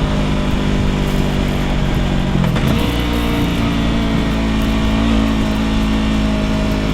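Yamaha R3 parallel-twin engine running through an aftermarket Ransoto slip-on exhaust, holding a steady note. About two and a half seconds in the pitch dips briefly, then settles higher.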